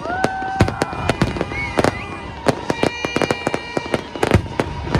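New Year fireworks going off: a rapid, irregular barrage of sharp bangs and crackling reports, with whistling tones held and gliding over them.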